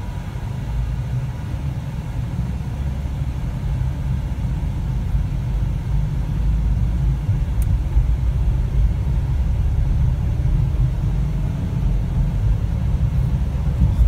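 Car cabin noise while driving: a steady low rumble of engine and road, growing somewhat louder over the first several seconds as the car moves through the intersection.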